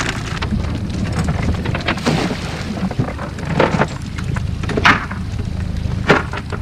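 Water pattering and herring flopping as a cast net full of herring is shaken out over a bucket, over a steady low hum. A few sharp knocks come in the second half.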